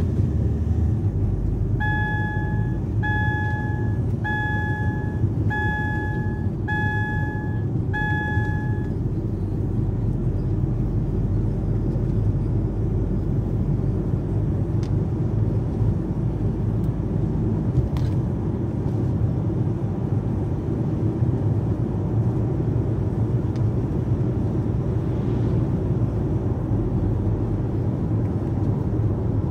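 Steady low road and engine rumble heard inside a moving car's cabin. Between about two and nine seconds in, six short electronic beeps sound about a second apart.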